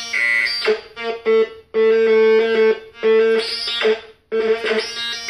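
Noise Toaster analog synthesizer, driven by a small sequencer board, playing a buzzy, repeating pattern of pitched notes over a held tone. The sound cuts out briefly about a second and a half in and again around four seconds in.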